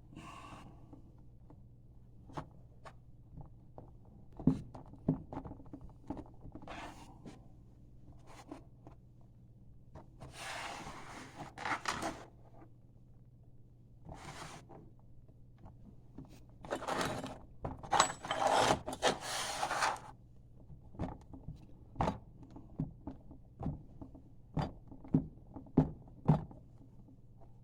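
Scattered taps, knocks and scrapes of a wooden core box packed with green sand being handled and worked, with a few longer scraping passes midway.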